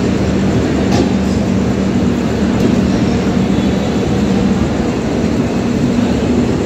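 Indian Railways luggage, brake and generator car rolling slowly past close by as an express train arrives. Its diesel generator sets run with a steady hum over the rumble of wheels on rail, with one sharp click about a second in.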